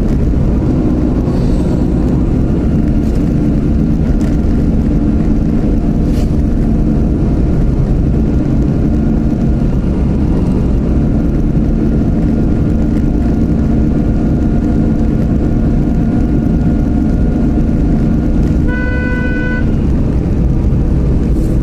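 Steady engine and road noise of a car driving, heard from inside the cabin. Near the end a vehicle horn sounds once, for about a second.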